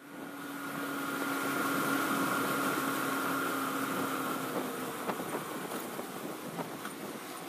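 Yamaha YBR125's single-cylinder four-stroke engine running at steady revs while riding, under wind and road noise. The engine note drops away about two-thirds of the way through, leaving mostly wind and road noise.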